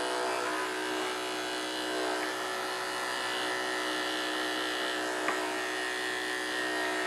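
Corded electric pet clippers running with a steady, even buzz as they shave a puppy's body hair, with one brief click about five seconds in.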